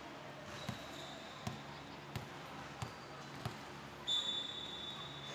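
A volleyball bounced on the hard court floor five times at an even pace, about once every 0.7 s, as a player readies her serve. About four seconds in, the referee's whistle gives a short, loud, steady blast for the serve.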